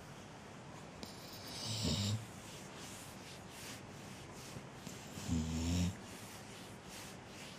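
A sleeping pet snoring: two snores about three and a half seconds apart, each a short low rasp after a breathy in-breath.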